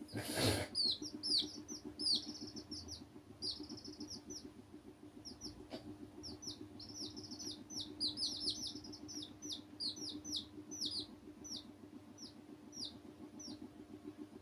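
Baby chicks peeping: many short, high, downward-sliding peeps in irregular clusters. A brief rustle comes right at the start, and a steady low hum sits underneath throughout.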